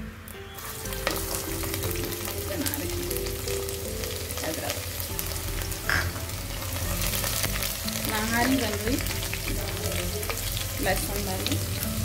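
Chopped garlic sizzling and frying in hot oil with whole spices in an aluminium pressure cooker, stirred with a spatula that clicks and scrapes against the pan now and then.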